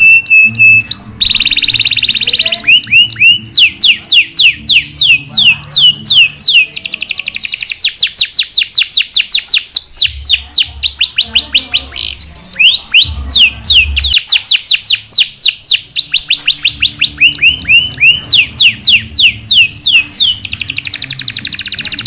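Domestic canary singing a long, loud song of rolls: rapid runs of high falling whistled notes, several a second. The runs change to a new phrase every few seconds, and a short harsh buzzy note comes about a second in.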